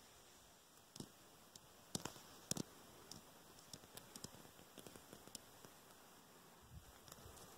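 Near silence with faint scattered clicks and rustles from someone moving over rock, including two slightly louder clicks about two seconds in.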